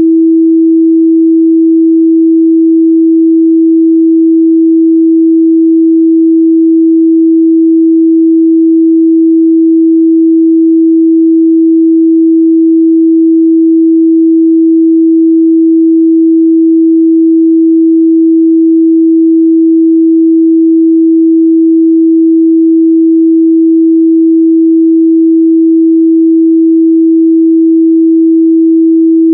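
Steady 326 Hz sine-wave test tone, a single pure loud pitch held unchanged, for checking speaker and headphone response in the midrange.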